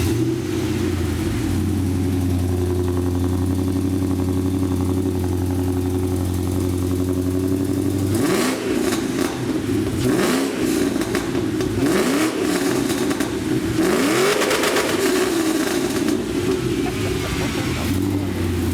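2005 Mustang GT's 4.6-litre V8, breathing through aftermarket headers and a full exhaust system, idling steadily for about eight seconds. It is then revved several times, each rev rising and falling, and settles back to idle near the end.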